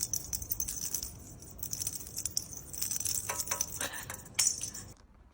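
A parrot's toy with small metal bells jingling and rattling in quick, irregular shakes, stopping near the end.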